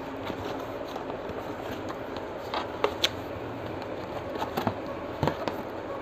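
Cardboard box flaps being pulled open by hand: scattered cardboard rustles and scrapes, with a few sharp crackles around the middle and again near the end, over a steady hiss.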